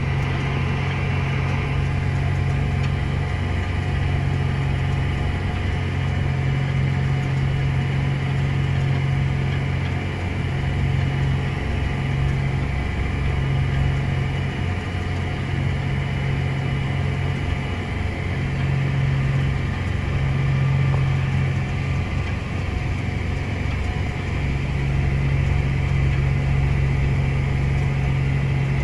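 A vehicle engine running steadily, a continuous low drone that swells and eases slightly in level.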